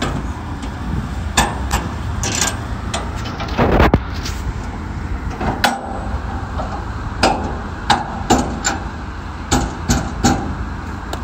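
Sharp metal clanks and knocks, a dozen or so at uneven intervals, from the steel rear doors of a shipping container as its locking handles and bars are worked shut. A steady low rumble runs underneath.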